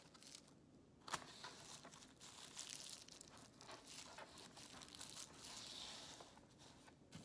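Faint, irregular rustling and crinkling with a few small clicks: a strip of foil-like material being threaded by hand through the cotton warp of a cardboard lap loom.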